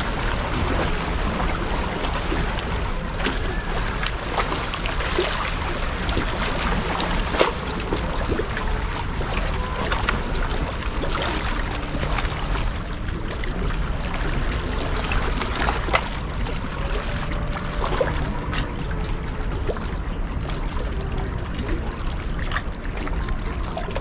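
Sea water washing steadily against a rocky shore, a constant rushing hiss, with a few sharp clicks and knocks, one about seven seconds in and another around sixteen seconds.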